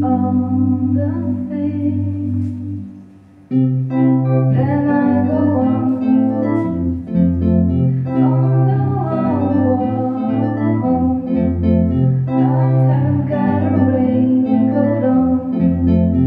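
Live dream-pop music: sustained synthesizer chords and bass notes with electric guitar, and a woman's voice singing over them. The music thins out and drops briefly about three and a half seconds in, then comes back in full on a new bass note.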